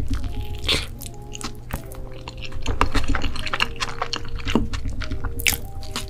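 Close-miked biting and chewing of crusty toasted bread, with sharp crunches throughout; the loudest come about a second in and near the end. Soft background music with a gentle melody plays underneath.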